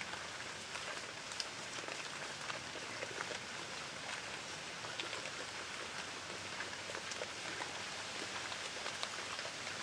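A herd of feral hogs feeding at a feeder: many small, scattered crunching and crackling sounds over a steady hiss, as the hogs chew feed and root through dry ground and leaves.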